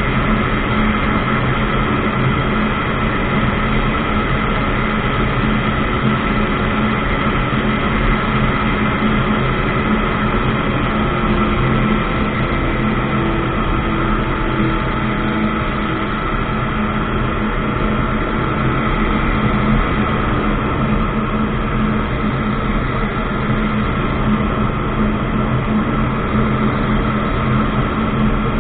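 Ultralight aircraft engine and propeller running at steady power, a constant loud drone with several unchanging tones.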